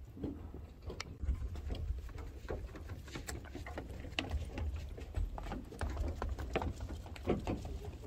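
Hiker's footsteps on a mountain trail: an irregular run of scuffs and taps, over a low rumble.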